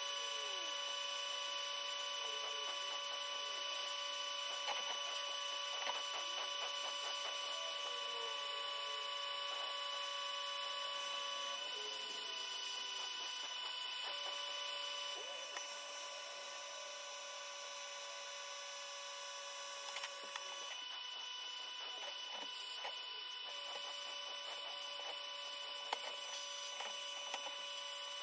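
Steady electrical hum made of several held tones that drop out and return a few times, with scattered faint clicks.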